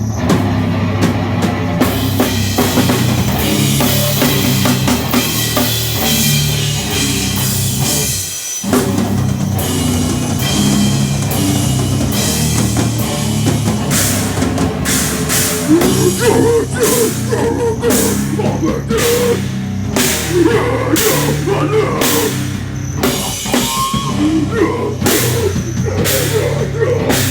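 A live band playing loud heavy rock with a pounding drum kit, the full band briefly dropping out about eight and a half seconds in before crashing back in.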